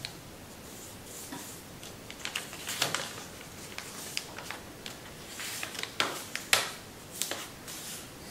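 Sheet of Kami origami paper rustling and crackling as hands fold it and lift a flap open, in irregular bursts of crinkles and light taps, loudest about three seconds in and again around six seconds in, over a steady hiss.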